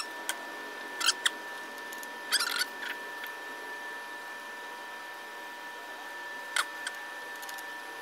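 Light metallic clicks and scrapes of a grease zerk rejuvenator tool being handled and fitted onto a grease fitting, in a few short bursts, over a steady high-pitched hum.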